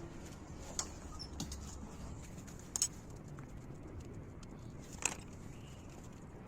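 A few short, light clicks and taps, spaced irregularly, over a faint steady low hum.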